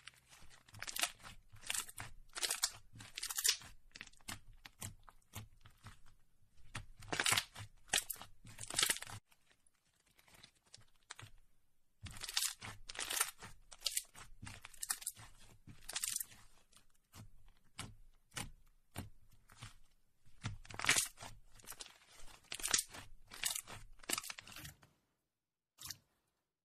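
Clear blue glitter slime being squeezed and pressed by hands, giving many short sticky crackles and pops in irregular clusters, with a pause about ten seconds in.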